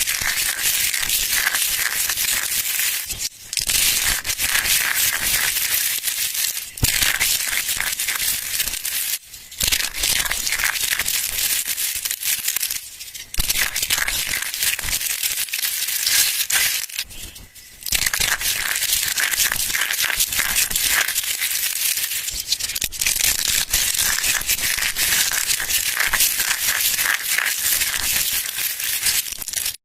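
Dry, crunchy soap being crushed: a dense, continuous crackling of many fine crunches, broken by a few brief pauses.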